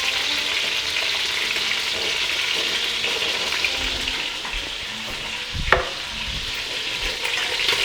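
Chicken pieces frying in oil in a pan, a steady sizzle as they brown, with a single sharp knock a little after halfway.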